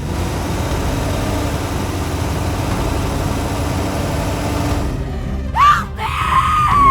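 A steady rushing noise, then near the end a short rising cry followed by a held high wailing cry that falls away, like a cartoon scream.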